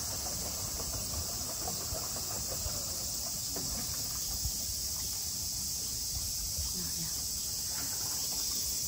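Summer cicadas singing in a steady, unbroken high-pitched chorus, with a low rumble underneath.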